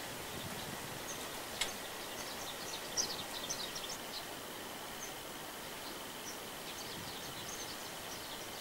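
Forest birds chirping in quick, high, scattered runs over a steady background hiss, busiest between about one and four seconds in, with one sharp click a little before two seconds.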